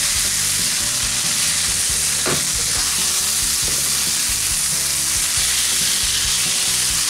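Rice and grated raw papaya sizzling in ghee in a nonstick pan, with the scrape of a spatula stirring through it and one sharper knock about two seconds in.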